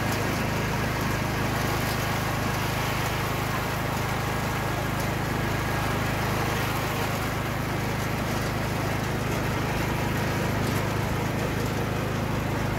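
Riding lawn mower engine running steadily at a constant pitch as the mower is driven across the lawn.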